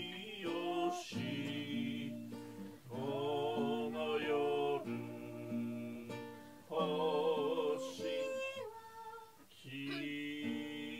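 A man and a woman singing a Christmas hymn together over instrumental accompaniment, the held notes wavering with vibrato.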